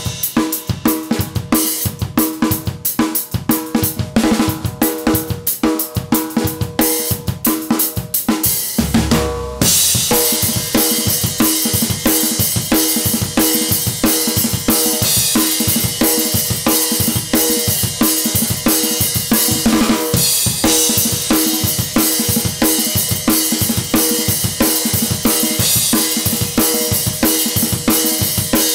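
Acoustic drum kit played on its own, with no other instruments: kick, snare and cymbals in a steady rock beat. About ten seconds in the playing switches from separate strikes to a busier groove under a continuous wash of ringing cymbals.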